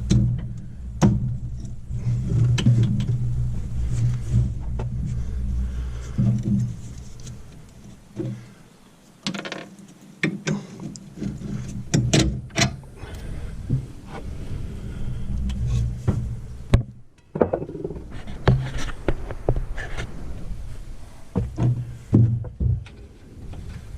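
Scattered metal clanks and knocks of hand tools and a pry bar working on a side-by-side's wheel hub, over a low steady hum that drops out a couple of times.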